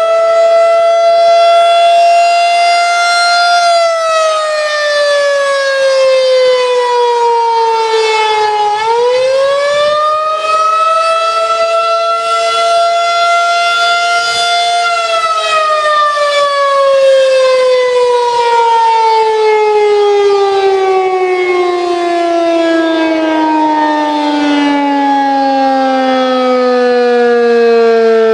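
Federal Signal 2001-SRN tornado siren sounding loudly. Its tone holds steady, dips in pitch about four seconds in and climbs back up, holds again, then slowly winds down to a much lower pitch through the second half.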